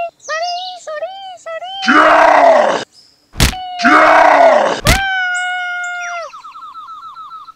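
Dubbed cartoon sound effects and comic voice noises: a run of short squeaky voice sounds, two loud yells, a sharp whack a little past three seconds and another near five as the toy figure strikes, then a long held tone that breaks into a fast wobbling trill near the end.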